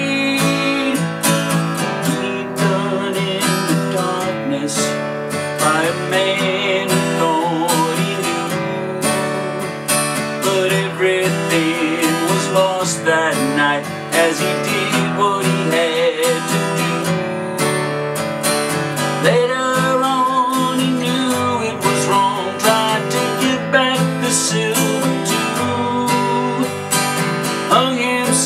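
Acoustic guitar strummed steadily in a folk-style accompaniment, playing an instrumental passage between verses.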